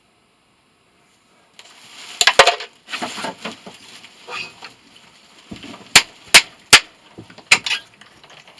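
Sharp clinks and clanks of scrap metal parts being handled. There is a clatter about two seconds in, then three sharp strikes in quick succession and a couple more near the end.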